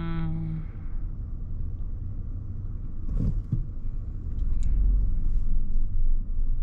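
Low, steady rumble of a car's engine and road noise heard from inside the car, growing louder about four seconds in. A steady pitched tone, like a horn, cuts off within the first second.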